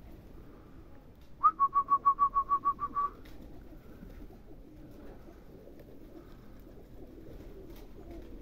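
A quick run of about a dozen short whistled notes, all on one pitch, lasting about a second and a half. Pigeons coo faintly in the background.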